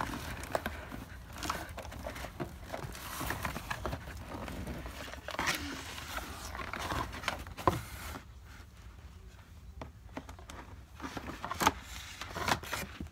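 Cardboard toy-kitchen box being pulled and pried at by hand: irregular rustling, scraping and knocks. It goes quieter about two-thirds of the way through, with scissors cutting the cardboard and a few sharp clicks near the end.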